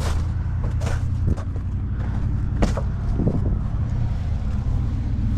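Pickup truck engine running steadily with a low, even hum, which sounds to the listener like a 5-liter. A few sharp clicks or knocks sound over it, about a second in and again past two seconds.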